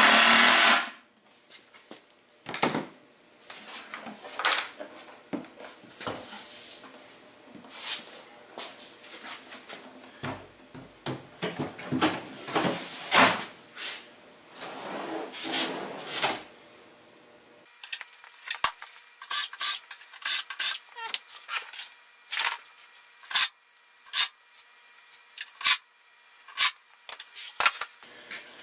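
A cordless drill with a VIX self-centring bit runs for about a second at the start, drilling a pilot hole for a drawer-front screw. After it come scattered workshop handling sounds: wood and tools knocked, rubbed and set down on the bench, with a run of quick clicks and knocks in the last ten seconds.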